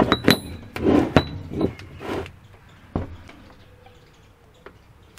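Metal clinks and knocks of motorcycle gearbox gears and shafts being handled and set down on a workbench, several in quick succession over the first two seconds, some with a short metallic ring, then one more knock about three seconds in.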